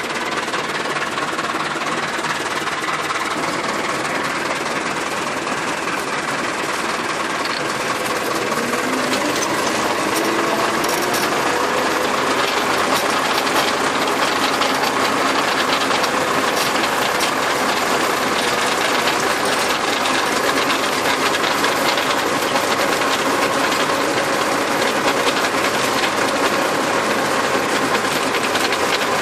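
Tractor engine running under load with a PTO-driven rotary tiller turning in the soil: a steady mechanical drone with a fast, even clatter.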